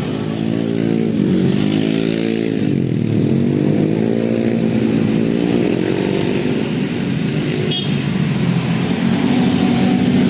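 Vehicle engine revving up and falling back in pitch twice, then running more evenly, with a short sharp click near the end.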